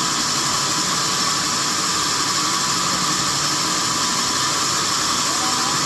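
Sawmill machinery running steadily: a constant hissing noise with a steady high tone through it.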